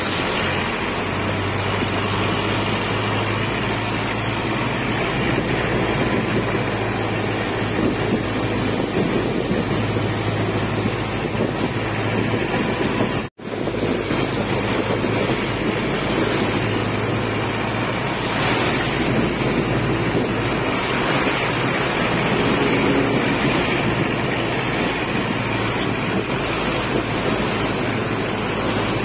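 Riding in a moving jeepney in heavy rain: a loud, steady rush of wind buffeting the microphone and tyres hissing on the wet road, over the low steady drone of the engine.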